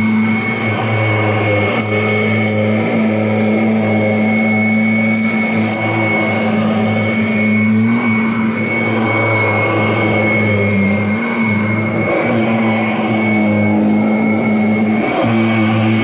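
2017 Kirby Avalir upright vacuum cleaner running steadily while pushed over carpet: a low motor hum with a steady high whine on top, the hum wavering briefly a couple of times.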